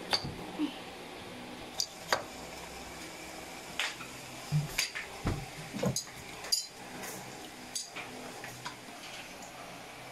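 Kitchen knife cutting through small eggplant onto a plastic cutting board, with other kitchenware clattering: a dozen or so short, sharp knocks and clicks at irregular intervals.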